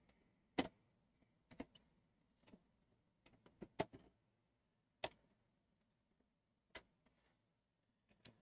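Hands working inside an opened microwave oven's metal chassis: about a dozen light, irregular clicks and knocks, the loudest just over half a second in and near four seconds.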